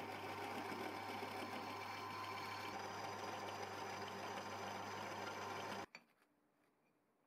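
Drill press running steadily as a twist drill cuts into a steel angle-iron part, stopping suddenly about six seconds in.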